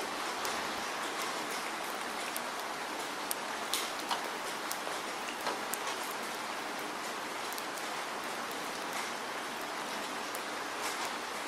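Steady rainfall hissing, with scattered individual drops landing as sharp little ticks, more of them in the first half.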